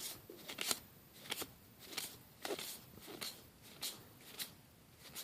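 Magic: The Gathering cards being flipped one after another through the hands while going through a booster pack, a short card-on-card slide about every half second to second, eight or nine in all.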